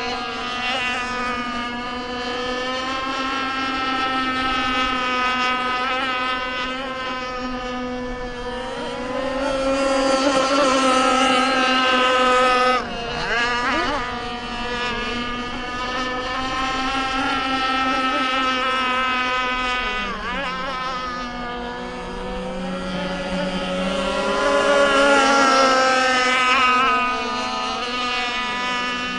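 Micro Burst RC boat's motor running at speed with a steady high pitch. The pitch wavers and swings as the boat turns and passes, and the level drops suddenly about 13 seconds in.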